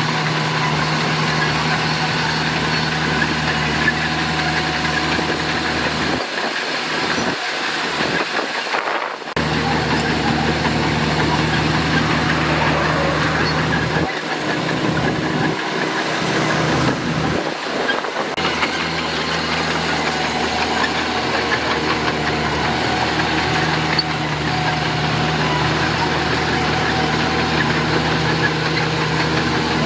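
Heavy diesel earthmoving machinery running steadily, a constant low engine hum. The low rumble cuts out briefly twice.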